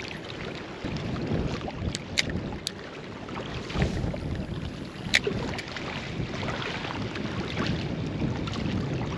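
Wind buffeting the microphone in a steady low rumble, with a few short sharp clicks about two and five seconds in.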